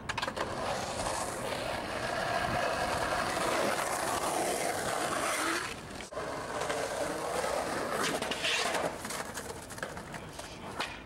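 Skateboard wheels rolling over rough concrete with a steady grinding rumble. The sound breaks off abruptly about six seconds in, then resumes with a brief sharper scrape near the end.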